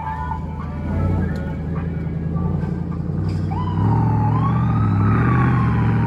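Hummer H2's V8 engine rumbling as it drives slowly past. About halfway through, a siren wail from one of the custom Hummers sets in, rising and then slowly falling.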